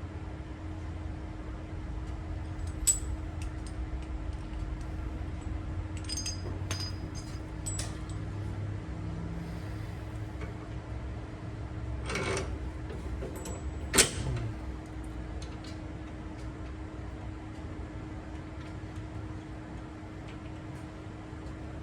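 Steady background hum with scattered light metallic clinks and rattles of tools and parts being handled, and one sharp knock about two-thirds of the way through.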